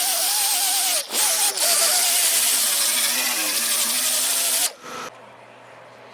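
Small power tool cutting into a wooden boat hull, running at high speed with a wavering motor whine. It stops briefly about a second in, starts again, sags in pitch as it bites into the wood, then shuts off about three-quarters of the way through, with one short blip after.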